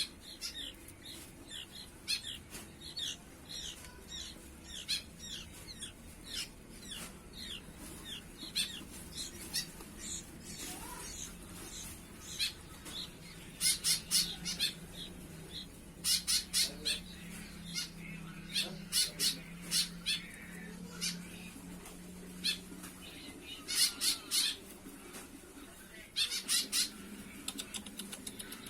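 Young sooty-headed bulbul chicks calling: a run of short, shrill, down-slurred notes, two or three a second, then louder bunched bursts of squawking calls.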